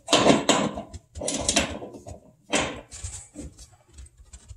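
Two adjustable wrenches clinking and scraping on the brass flare nut and fitting of a flexible gas connector as the nut is tightened down, in a few short bursts that grow fainter toward the end.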